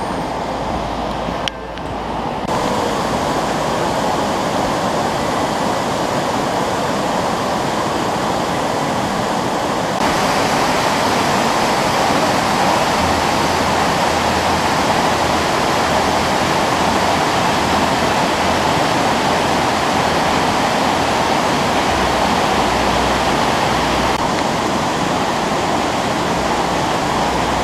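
Wide waterfall pouring over stepped rock ledges: a loud, steady rush of falling water, a little louder from about ten seconds in.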